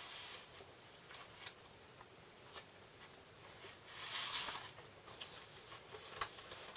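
Quiet handling of a vinyl LP and its sleeve: small taps and rustles, with a soft sliding swish about four seconds in.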